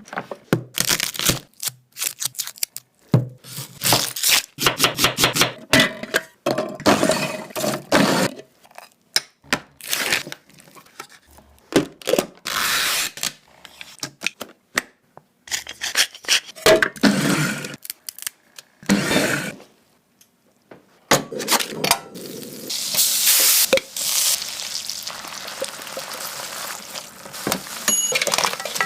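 Kitchen clatter: many irregular knocks and cracks, then about two-thirds of the way through a steady sizzle of food frying begins.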